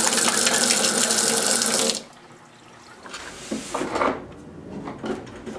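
Hot water running from a sink tap into a glass jar, a steady splashing rush that cuts off suddenly about two seconds in. After it, a few short knocks as a wooden board is handled on a workbench.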